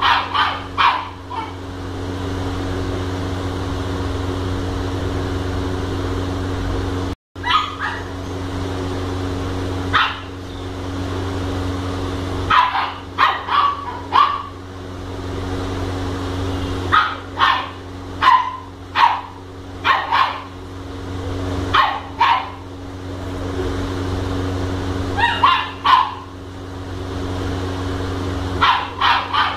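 Labrador retriever puppy barking in short clusters of two to four yappy barks every few seconds, over a steady low hum.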